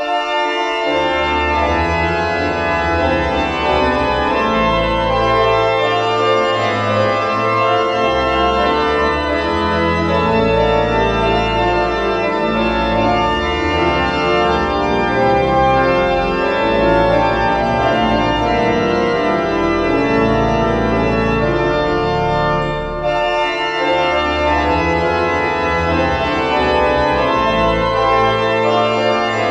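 Pipe organ playing a full-voiced piece: sustained chords over a slowly moving bass line, starting abruptly, with a brief dip in level about 23 seconds in.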